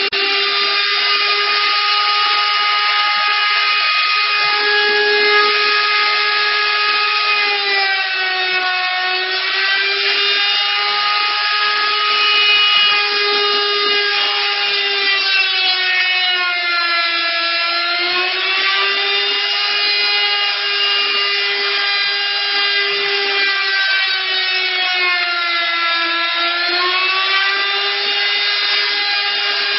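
Motor of an automatic dovetail-cutting machine running continuously with a loud, high whine, its pitch sagging and recovering several times as it cuts dovetails in wood.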